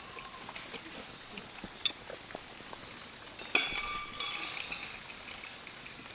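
Metal utensils clinking against dishware while eating, with small taps and one sharp clink about halfway through that rings briefly.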